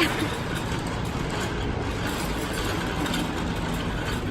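Steady background hubbub of a busy restaurant dining area, with a brief knock at the very start.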